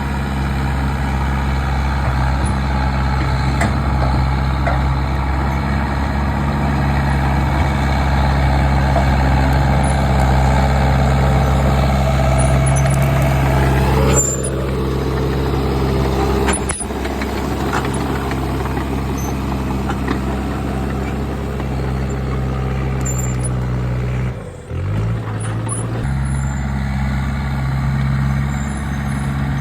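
Komatsu D39 bulldozer's diesel engine running steadily, its note falling a little about halfway through and dipping briefly near the end before it picks back up.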